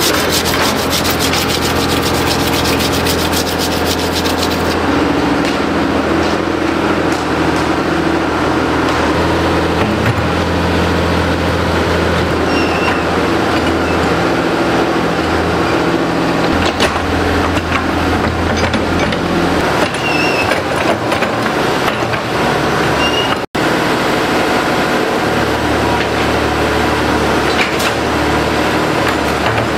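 An engine running steadily, its speed shifting a few times, with rapid ticking over it for the first few seconds. The sound drops out briefly about three-quarters of the way through.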